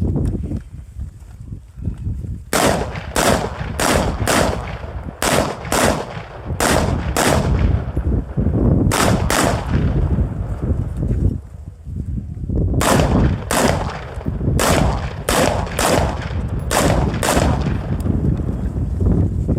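A competition stage's string of gunshots, many fired in quick pairs, in two runs of shooting with a pause of a couple of seconds between them. A steady low rumble runs underneath.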